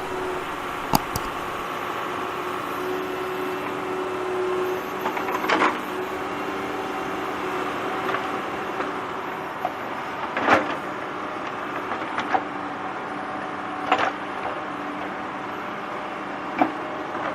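A toy's small electric motor whirring steadily, with a faint held hum and about five sharp clicks or clatters spread across it.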